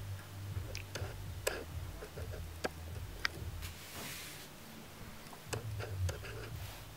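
Domestic rabbit licking a person's hand clean of nectarine juice: scattered small, sharp tongue-and-mouth clicks at irregular intervals, over a low rumble.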